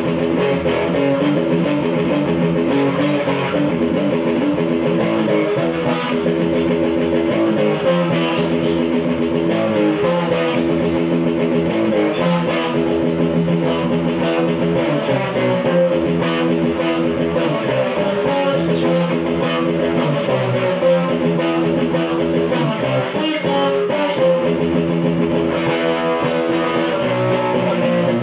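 Stratocaster-style electric guitar, single-coil pickups, played through an amplifier: a continuous rock riff of picked notes and chords that changes pitch every fraction of a second, without a break.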